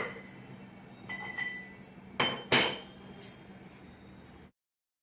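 Stainless steel kitchen utensils clinking and knocking together, with a light clink about a second in and two loud ringing metallic knocks a little after two seconds. The sound cuts off abruptly to silence near the end.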